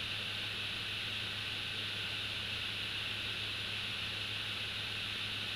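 Steady hiss with a low electrical hum from a nest camera's live audio feed, unchanging throughout, with no distinct bird calls.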